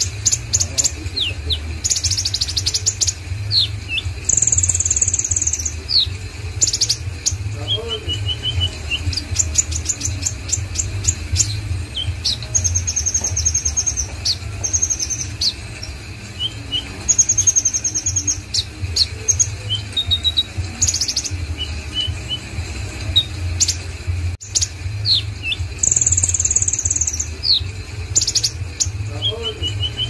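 Caged male black sunbird (kolibri ninja) singing in full form: a long run of high, thin chirps, fast ticking rattles and short buzzy trills, one after another with brief pauses. A steady low hum runs underneath.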